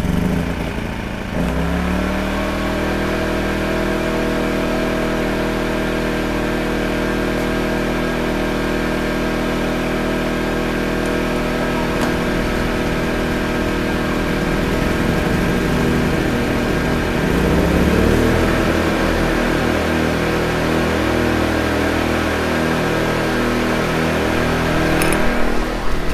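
Two WEN 2000-watt four-stroke inverter generators running side by side. About a second and a half in the engine sound steps up. About two-thirds of the way through one engine speeds up with a rising pitch as eco mode is switched off, and from then on the two run at slightly different speeds, beating against each other. A short clatter near the end.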